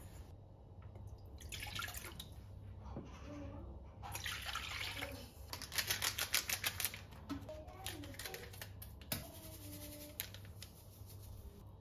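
Water and then milk poured from glass mugs into an enamel mixing bowl, two short splashing pours, followed by the crinkle and shaking of a plastic yeast sachet over the bowl.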